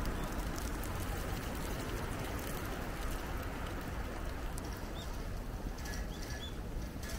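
Steady rain falling, an even hiss with scattered drop clicks. A few faint, short, high bird chirps come near the end.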